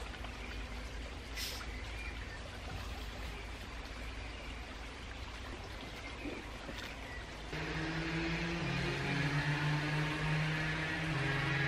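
Faint sounds of a glass beer bottle being opened and drunk from, with a few small clicks. About seven and a half seconds in, background music with long held low notes comes in and becomes the loudest sound.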